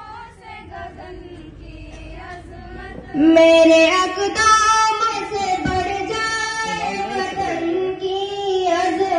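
Girls' voices singing a prayer into a microphone, quieter at first; about three seconds in a voice comes in much louder and holds long notes.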